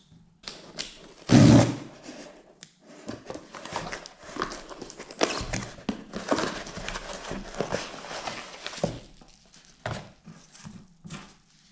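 A shipping package being handled and opened by hand: a run of knocks, scrapes and rustles, with one loud thump about a second and a half in.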